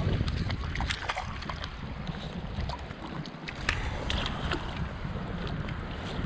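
Steady rush of flowing water with wind buffeting the microphone in a low rumble, and a few short sharp clicks scattered through it.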